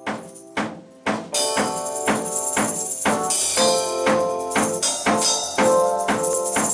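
Live band rehearsal: electric keyboard chords over a drum kit. After a couple of separate hits, the full groove comes in just over a second in, with a steady beat of about two strokes a second.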